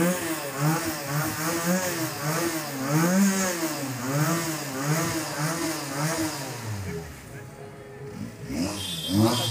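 Motorcycle engine revved in quick repeated throttle blips, about two to three a second, the pitch rising and falling with each blip. The revving eases about seven seconds in and picks up again just before the end.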